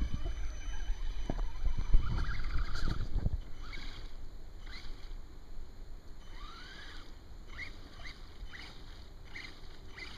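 Electric RC crawler truck ploughing through creek water: heavy splashing and low rumble for the first few seconds, then a run of short rising whines from its electric motor as the throttle is blipped, each with a burst of spray from the spinning tyres.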